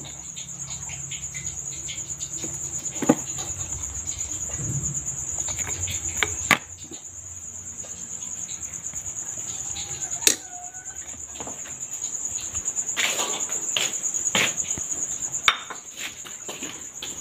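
A plastic rice paddle knocks and scrapes against a rice cooker's inner pot and a glass plate as cooked rice is scooped out: a few sharp taps spaced seconds apart, over a continuous high-pitched trill.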